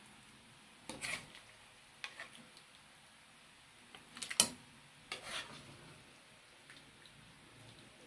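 Serving spoon scraping and clinking against a steel pan and a glass dish as curry is spooned out. There are a few short scrapes and knocks, with one sharp clink about four and a half seconds in, the loudest.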